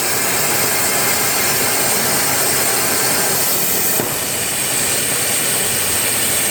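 Plasma arc torch on a CNC table, powered by a Hypertherm Powermax65, cutting through 15 mm steel plate: a steady loud hiss with a constant high whine on top, with a brief dip about four seconds in.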